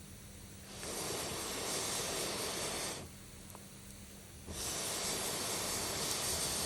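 Two long, breathy blasts of air, each about two seconds with a short pause between, the first starting about a second in. They fit someone blowing onto the fire to liven it.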